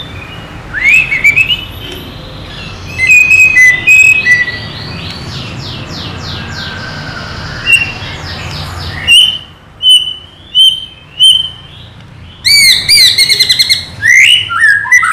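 White-rumped shama (murai batu) singing: a varied, loud run of clear whistles, rising glides and fast trills, then a series of short, sharp repeated notes about half a second apart in the second half.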